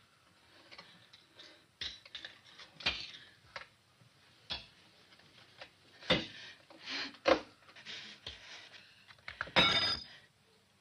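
A wooden stool knocked and shifted on the floor in several separate clicks and thuds, then, near the end, a short, loud spell of glass cracking and crunching as a piece of glass is crushed under the stool's leg.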